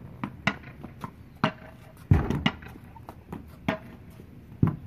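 Paddle tennis rally on a concrete driveway: sharp knocks of the ball off the paddles and bouncing on the concrete, about one to two a second, some with a short ring, and a heavier thump about two seconds in.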